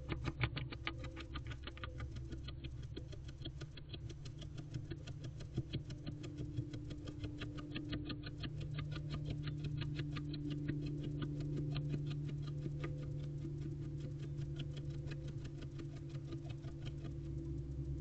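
Female barn owl scratching at very high speed inside a nest box: a fast, steady run of dry scratches, many to the second. A steady low hum lies underneath.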